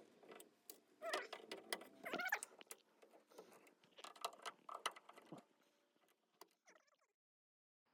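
Irregular clicks, rattles and squeaks of a hand cutting tool worked against plastic zip ties that won't cut through, which stop abruptly about a second before the end.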